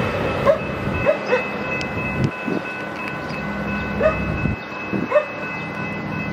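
Metra commuter train of bilevel coaches rumbling away down the track, the wheel noise thinning out. A dog barks repeatedly in short, rising yelps over it, and a faint steady high tone runs underneath.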